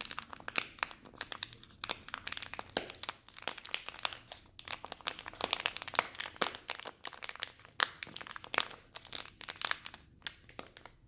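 A packet being crinkled: a dense, irregular run of sharp crackles with a few brief pauses, stopping just before the end.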